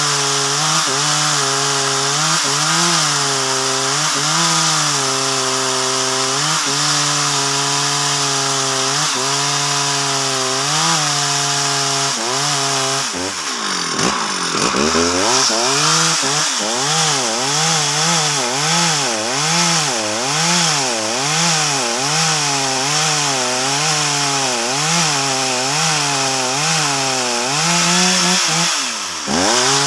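Two-stroke Stihl chainsaw ripping lengthwise along a log of very hard wood, its engine pitch rising and falling about once a second as the bar is rocked in the cut. About halfway through the engine drops in pitch and climbs back, and it dips briefly again near the end.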